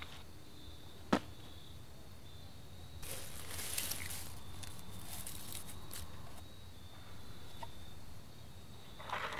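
Handling and rustling sounds: a sharp click about a second in, then several seconds of rustling among dry leaves, with a few small clicks near the end. A faint steady high whine and low hum run underneath.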